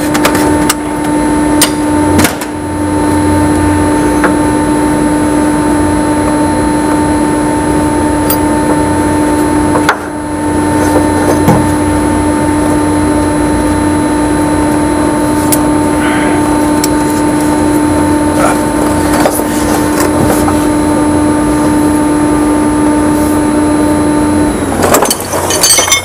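A steady machine hum with a clear tone runs and cuts off suddenly near the end, with a few sharp clinks of hand tools on metal.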